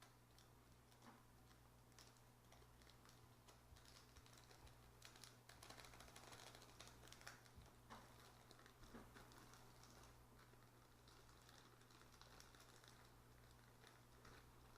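Near silence: faint scattered clicks and light rustling of slime-making containers and ingredients being handled, over a steady low hum.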